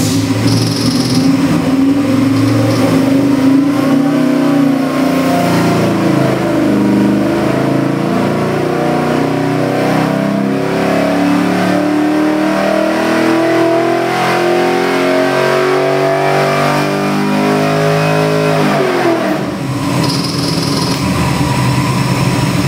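GM LS3-based 416-cubic-inch stroker V8 running a wide-open-throttle pull on an engine dyno. Its pitch climbs steadily for about eighteen seconds, then the throttle closes and the revs drop quickly back to idle.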